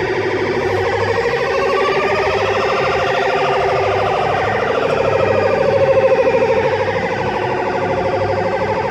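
Electronic sound effect from an RG Mitchell Space Bike coin-operated kiddie ride with its button held down: a continuous fast-warbling, siren-like tone that slowly sweeps up and down in pitch.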